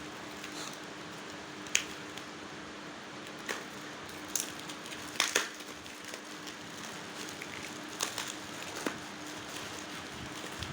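Packaging being handled during an unboxing: a few scattered sharp clicks and crackles, two close together about five seconds in, over a steady hiss and faint hum.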